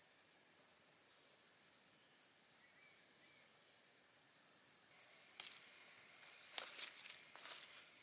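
Steady high-pitched chorus of insects. About two-thirds of the way through, a few short rustles and one sharp click break in, as of something moving through dry leaf litter.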